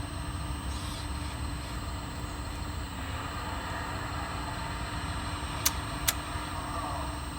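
1/14-scale RC hydraulic excavator running steadily with a constant whine and hum, with two sharp clicks about a second apart near the end.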